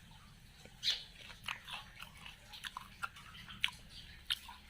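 A person chewing a mouthful of tiffin dipped in chutney close to the microphone, with irregular small wet clicks and crackles of the mouth.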